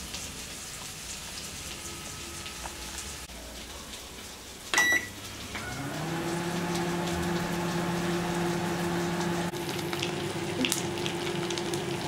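Microwave oven started on grill mode: a click and a short beep about five seconds in, then the oven's steady hum as it runs.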